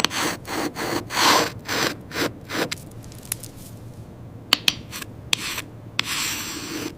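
Rhythmic rasping, rubbing strokes, about three a second, that give way to a few sharp clicks and a short hiss near the end.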